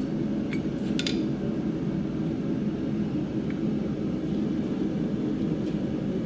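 Steady low roar of a gas forge burning, with one faint metallic tick about a second in.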